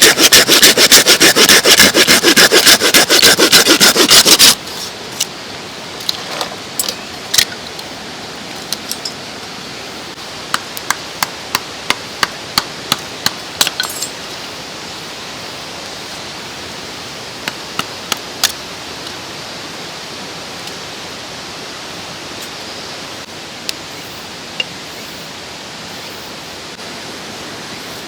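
A hand saw cutting wood with fast, loud strokes for the first four or five seconds, then scattered light knocks and clicks, with a run of about two a second around the middle. The steady rush of a mountain stream runs underneath.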